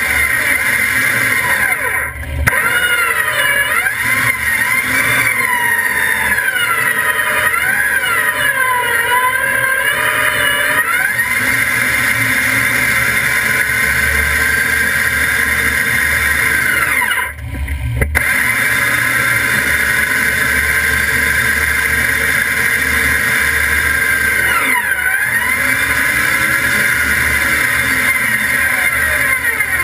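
Jeep Wrangler JKU running close by, a steady loud drone with a whine that wavers up and down in pitch. It drops out briefly about two seconds in and again about seventeen seconds in.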